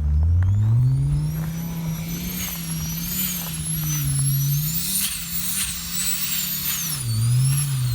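Audi 200 20V's turbocharged five-cylinder engine revving up and down, with a high whistle from the Borg Warner EFR7163 turbo that rises and falls with the revs. The whistle comes from the compressor housing being drilled for a speed sensor with no sensor fitted.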